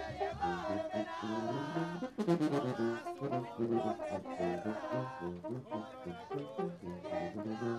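Mexican banda brass band playing live: trumpets and trombones carry the melody over a sousaphone bass line, with cymbal and drum hits, including a cluster of crashes a little over two seconds in.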